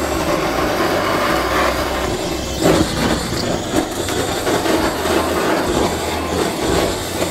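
Handheld butane kitchen torch running with a steady rushing flame, melting and searing sliced cheese on top of fried rice in a pan.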